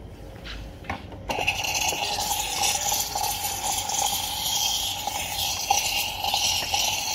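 An espresso machine's steam wand starts hissing suddenly about a second in and keeps up a steady hiss as steam jets into a mug held under it.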